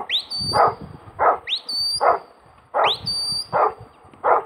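Huntaway sheepdog barking steadily to drive sheep, roughly one bark every two-thirds of a second. Over it, a handler's whistle sounds three times, each call sweeping quickly upward and then holding a high note.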